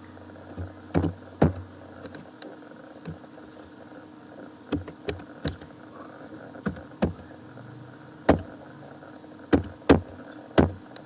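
Computer keyboard keys pressed one at a time: about a dozen separate clicks, spaced unevenly with some in quick pairs, over a low steady hum.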